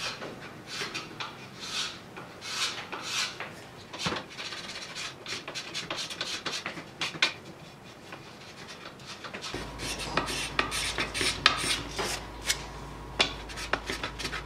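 Hands rubbing and scraping thin wood veneer onto a bent-wood drum hoop: many short, irregular scratchy strokes.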